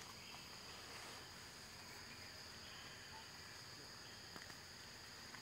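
Faint, steady, high-pitched drone of insects, with a couple of soft ticks about four seconds in.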